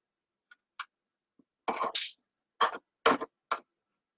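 A woman coughing and clearing her throat: a couple of faint ticks, then four short bursts about half a second apart starting a little under two seconds in.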